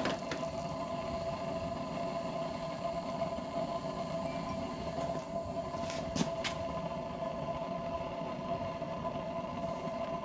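Propane flame from a grill-burner jet burning inside the burner pipe of a homemade melting furnace: a steady rushing noise with a steady tone on top. A few sharp clicks about six seconds in.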